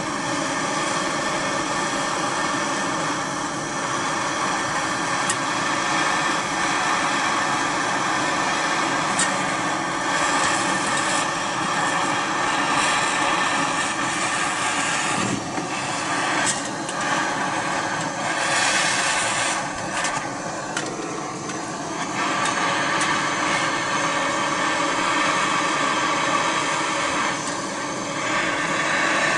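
Handheld gas torch burning with a steady hiss, its flame heating a chainsaw starter's steel return spring so it can be bent without snapping.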